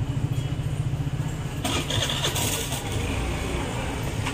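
A motor vehicle's engine running steadily with a low, slightly pulsing rumble. A burst of hiss comes in from about a second and a half to three seconds in.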